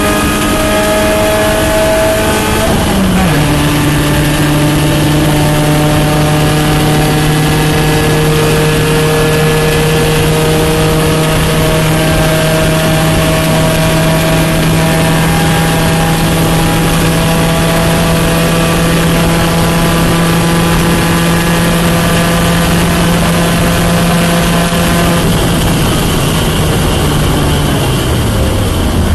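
Porsche 944 race car's inline-four engine running hard. About three seconds in, the pitch steps down once, as at a gear change. The note then holds steady for about twenty seconds before sliding down near the end.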